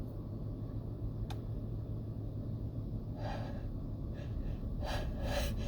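A person's short, catching gasps, several in a row over the last two or three seconds, as the breath is drawn in before a sneeze during a sneezing fit.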